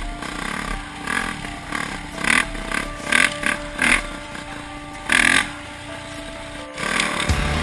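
Yamaha dirt bike engine running on the trail, revving up in short bursts four times, the last one longest.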